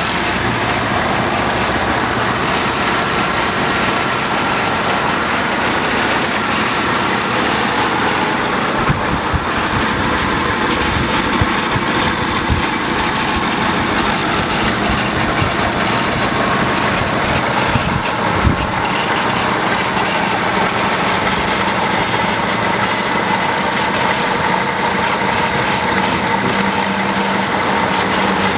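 1987 Chevrolet Chevette's four-cylinder engine idling steadily, heard close under the open hood. A few light clicks come through about halfway.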